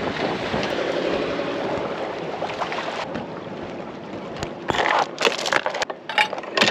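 Wind and water rushing past a sailboat under way. About three seconds in this gives way to a quieter stretch broken by a run of sharp knocks and rattles.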